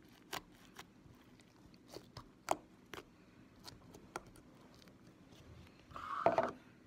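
Fingers poking and pressing slime mixed with small foam beads: scattered crackling clicks and pops, with a longer, louder squelch about six seconds in.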